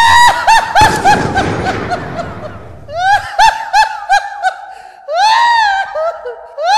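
A comic, very high-pitched laughing sound used as a funny ringtone. It goes in repeated phrases of quick 'ha-ha-ha' notes, starting again about three seconds in, again about five seconds in and once more near the end.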